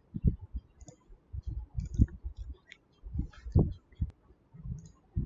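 Irregular clicks and soft knocks of a computer keyboard and mouse in use.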